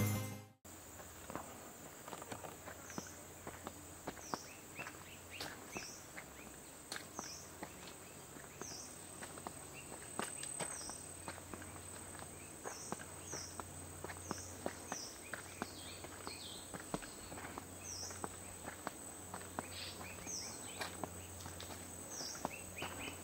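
Footsteps crunching along a dirt track scattered with dry leaves, over a steady high-pitched insect drone and short high chirps that fall in pitch, repeated every second or two.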